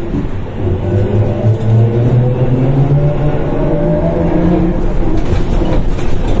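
Ikarus 280.94 articulated trolleybus's electric drive whining as it accelerates, the whine rising steadily in pitch over a few seconds, then fading into running rumble with a few light knocks near the end.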